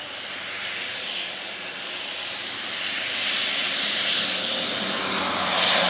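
Twin-engine amphibious water bomber flying low straight toward the listener, a rushing engine-and-propeller noise that grows steadily louder. It is loudest near the end as it comes overhead releasing its water load.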